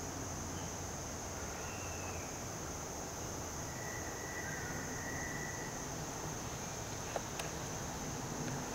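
Steady high-pitched drone of insects in summer foliage, with a few faint whistled notes and a couple of light clicks near the end.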